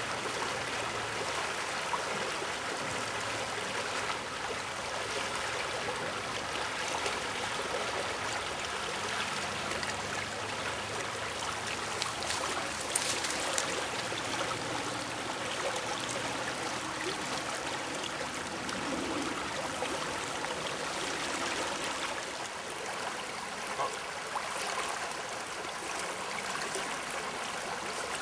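Shallow river rushing steadily over a stony riffle, an even hiss of flowing water.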